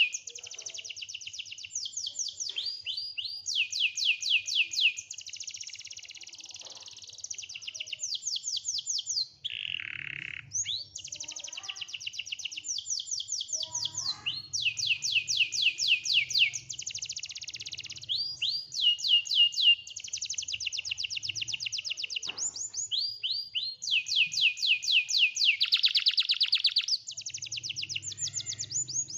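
Domestic canary singing a long, unbroken song of rapid trills: rows of quick repeated high notes that change to a new phrase every second or two, with a short lower, falling phrase near the middle.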